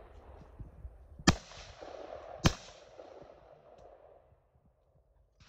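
Two shotgun shots about a second apart, fired at a pair of clay targets, each report echoing and dying away over the field.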